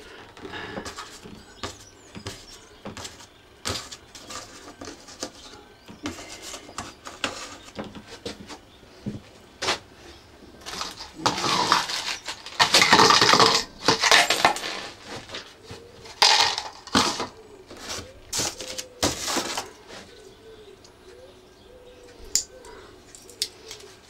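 Clicking and clattering of screws and hand tools being handled while a vacuum cleaner is taken apart, with a louder bout of rattling and scraping near the middle.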